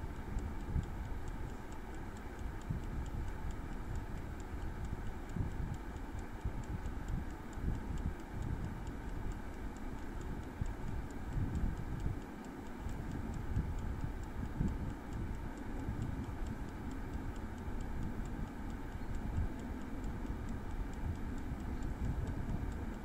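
Prego air fryer's clockwork timer ticking steadily while the fan runs with a faint steady hum, as it counts down a cooking cycle. Uneven low wind rumble on the microphone is the loudest sound.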